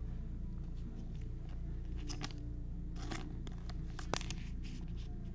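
A clear plastic card sleeve crinkling and scraping in gloved hands as a trading card is slid into it. There are a few short rustles and a sharp click about four seconds in, over a steady low hum.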